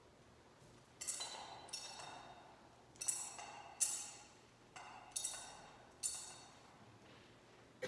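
Metal thurible clinking against its chains in sharp ringing strikes, grouped in about three pairs: the censer being swung in double swings to incense the Gospel book before it is read.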